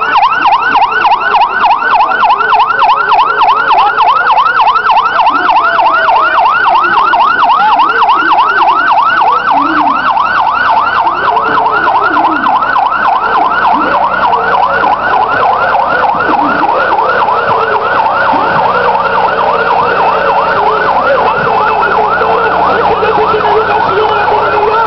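Fire department vehicle siren on a fast yelp: a rising-and-falling wail repeated several times a second, loud and steady. The sweeps blur together in the second half.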